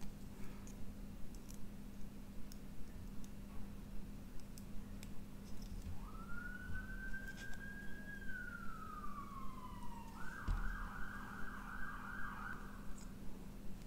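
Faint emergency-vehicle siren: a tone rises about halfway through, holds, slides slowly down, then switches to a fast warble for a couple of seconds. Beneath it runs a steady low hum with a soft regular tick about three times a second and a few small clicks.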